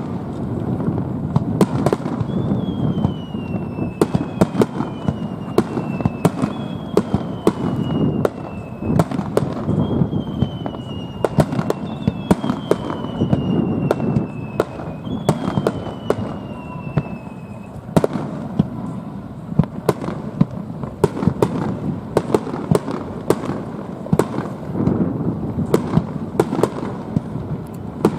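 Fireworks display: a steady run of bangs and crackling reports over a continuous rumble. Through the first two-thirds there is a series of falling whistles, one after another.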